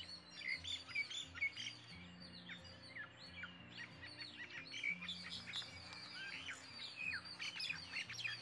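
Small birds chirping: many quick, short calls overlapping throughout. Soft background music with low held notes runs underneath.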